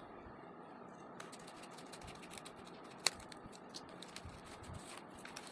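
A credit card kit box being opened and its contents handled: faint crinkling and small clicks, with one sharper click about three seconds in.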